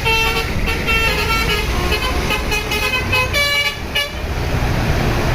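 Indonesian bus 'telolet' multi-tone Basuri horn playing a quick melody of changing notes for about four seconds, then stopping, over the steady rumble of engine and traffic.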